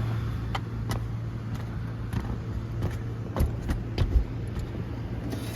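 Steady low hum of running machinery, with scattered light clicks and taps of handling.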